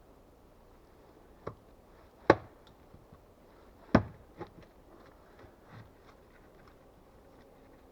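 Axe chopping wood: one light strike, then two hard, sharp chops a second and a half apart, followed by a few faint knocks.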